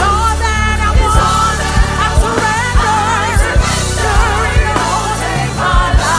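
Gospel worship band playing, with bass, drums and keyboards under sung vocal lines held with vibrato.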